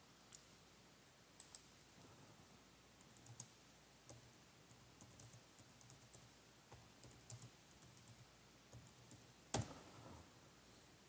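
Faint, irregular light clicks against quiet room tone, with one louder knock about nine and a half seconds in.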